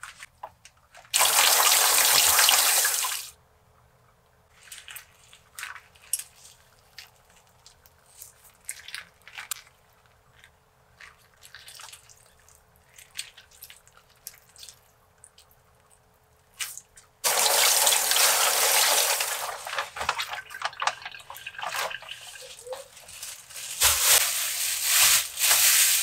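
Kitchen sink tap running in two spells, briefly about a second in and again for the last third, with soft wet handling noises of raw chicken in between. Near the end the running water mixes with sharper rustling, as a plastic produce bag is handled.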